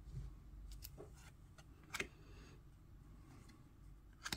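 Trading cards being flipped through by hand, card sliding over card: a few soft flicks and two sharper snaps, about two seconds in and near the end.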